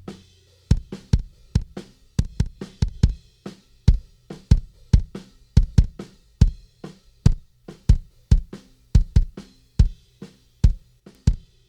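Drum kit recording playing a steady beat of kick and snare hits, with low notes sustained between the strikes.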